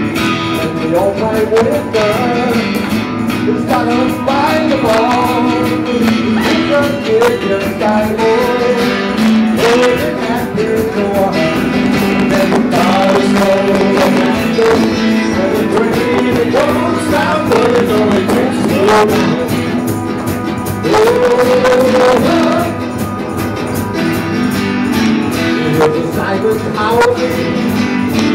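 Live rock band with electric and acoustic guitars playing, a winding melodic lead line over a steady guitar groove. The sound is crackly because the camera's microphone is overloaded.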